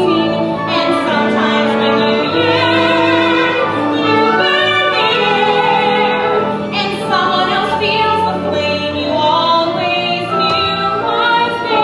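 Operatic singing with vibrato over orchestral accompaniment, a song from a stage musical.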